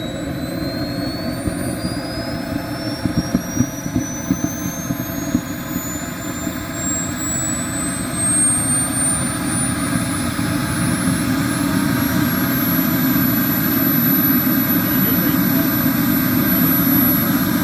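KingTech K102 model jet turbine spooling up during its start, a high whine rising steadily in pitch over a rushing roar and levelling off about thirteen seconds in as the engine settles. A few sharp cracks sound around three to five seconds in.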